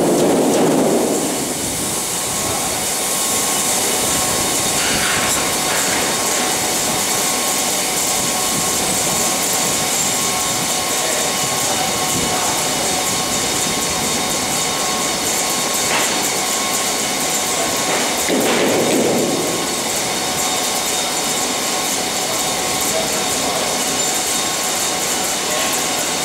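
Grain pouring from a rail hopper wagon's open bottom door into a receival pit: a steady hiss with a faint machinery hum under it. The hiss eases off as the wagon empties, with two short louder rushes, one at the start and one about 19 seconds in.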